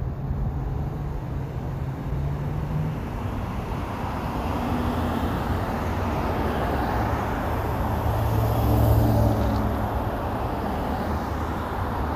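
Road traffic: a continuous wash of tyre and engine noise from passing vehicles, with low engine hums coming and going and the sound swelling to its loudest a little before nine seconds in as a vehicle passes closer.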